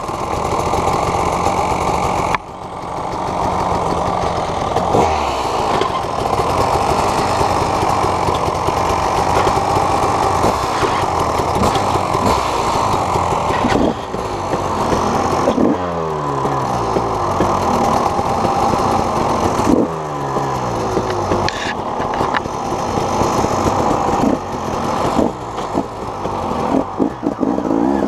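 An engine running steadily, its pitch dropping several times as it slows off.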